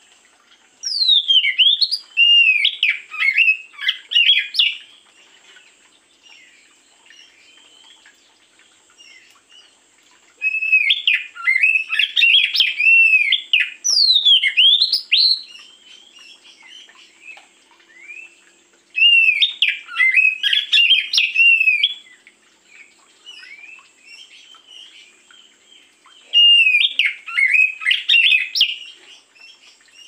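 Oriental magpie-robin (kacer) singing in four bouts of a few seconds each: varied whistled phrases with rising and falling slurs, separated by quieter pauses.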